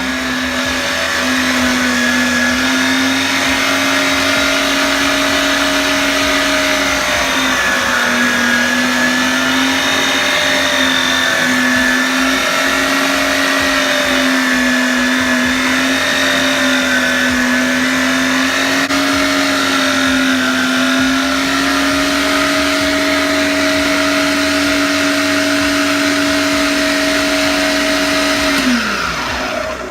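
Electric meat grinder running as it grinds lemon and ginger: a steady motor hum whose pitch sags slightly now and then as the load changes. The grinder is switched off near the end and winds down with a falling pitch.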